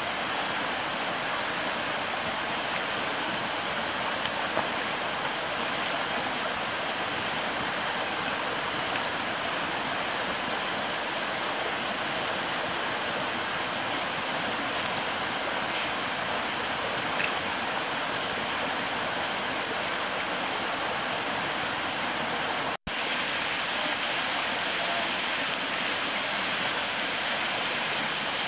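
A river flowing steadily close by, a constant rushing water sound, with a faint click from the campfire about two-thirds of the way through. The sound cuts out for an instant about three-quarters of the way through.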